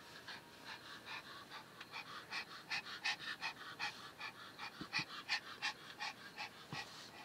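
An elderly Pomeranian panting softly and rhythmically, about four quick breaths a second.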